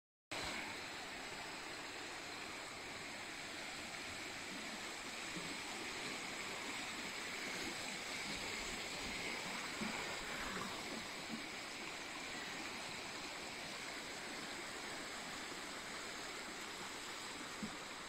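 Shallow stream running over rock slabs and small rocky steps, a steady rushing splash of water.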